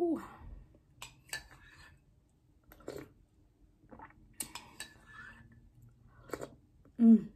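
Metal spoon clicking and clinking against a ceramic mug and plate, with sips from the mug. There are short voiced murmurs with a falling pitch at the start and, loudest, near the end.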